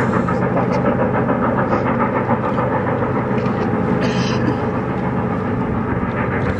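Norfolk and Western J-class 4-8-4 steam locomotive 611 working hard upgrade, its exhaust chuffing in a quick, even beat.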